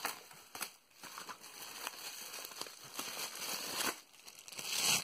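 Bubble wrap and plastic packaging crinkling and rustling as a hand rummages through a cardboard box. There are scattered small crackles, and the rustle grows louder near the end.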